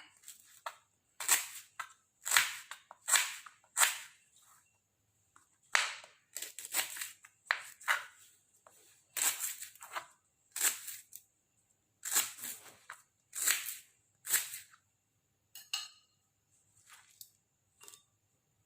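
Knife chopping lemongrass stalks on a cutting board: a long series of sharp chops, a few a second, in runs with short pauses, growing fainter near the end.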